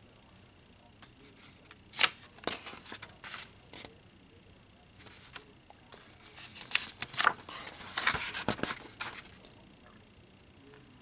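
Pages of a thick instruction booklet, printed on paper like construction paper, being turned by hand: a series of short paper rustles and flaps. The loudest comes about two seconds in, and a cluster follows between about six and nine seconds.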